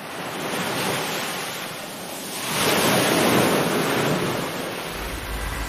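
Ocean surf: a steady wash of breaking waves that fades in and swells louder about two and a half seconds in.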